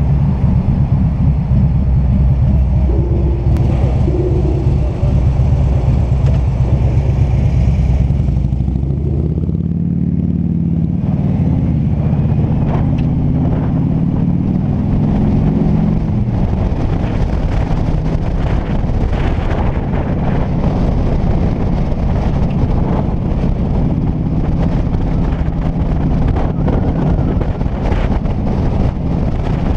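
Touring motorcycle riding in city traffic, heard from a camera on its fairing: a steady engine note with road and wind noise. About ten seconds in, the high hiss drops away and the engine pitch rises and then falls as the bike accelerates away.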